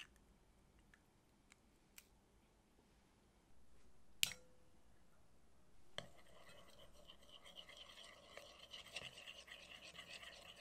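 Quiet kitchen handling sounds: a few light clicks, a sharper click about four seconds in, then from about six seconds soft continuous scraping, like ingredients being stirred or mixed in a bowl.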